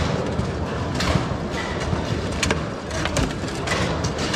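Foosball in play on a Bonzini table: sharp, irregular clacks of the ball struck by the figures and hitting the table, over a background murmur of voices.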